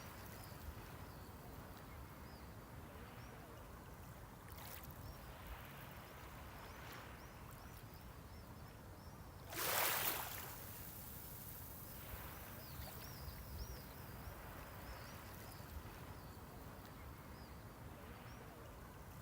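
Small sea waves washing on the shore in a steady low wash, with one louder wave breaking and splashing about halfway through for about a second.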